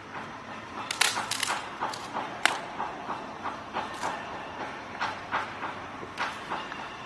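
Giant panda biting and chewing bamboo stalks: a run of sharp, irregular cracks and crunches, several a second, thickest about a second in.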